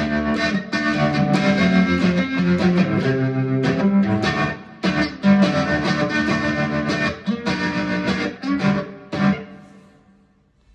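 Guitar playing an instrumental passage of strummed chords with sharp attacks. It dies away near the end into a brief near-silent pause.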